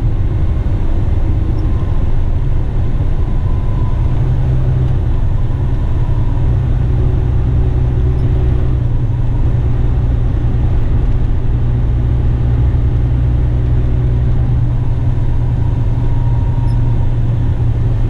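Western Star tipper truck's diesel engine and tyres heard from inside the cab while driving, a steady deep drone that holds even throughout.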